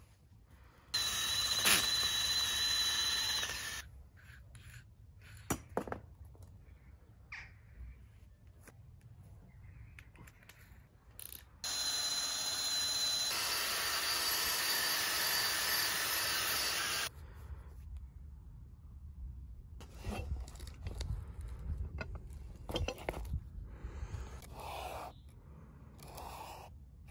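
DeWalt 18V brushless cordless combi drill spinning a wire cup brush against a rusty steel EZ curl bar to scour off the rust: a steady high whine with harsh scraping. It runs twice, about three seconds near the start and about five seconds midway, with light knocks and clicks in between and afterwards.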